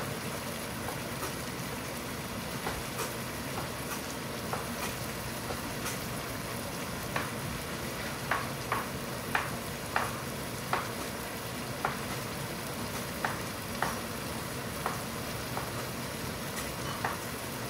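Steady sizzle of food cooking in a pot on the stove. Over it come sharp knife taps on a cutting board as tomatoes are cut up: a few scattered taps early, then about one or two a second from around seven seconds in.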